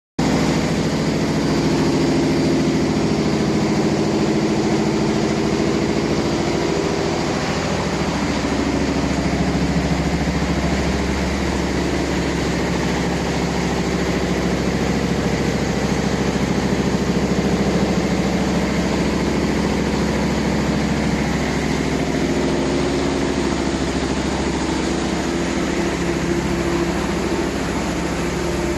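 Wood chipper and pellet production line machinery running: a steady, loud industrial drone with a constant low hum and no change in load.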